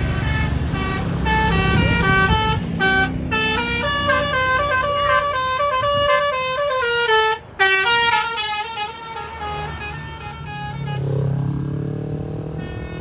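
A bus's Basuri 'telolet' multi-tone musical horn playing a fast melody of short stepped notes. It breaks off briefly about halfway, then carries on more faintly. The bus's engine runs underneath, its pitch rising near the end.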